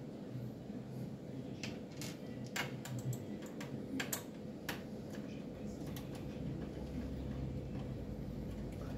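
Screwdriver working the power-supply screws at the back of a metal mini-PC case: irregular light clicks and taps, most of them in the first half, over a low steady hum.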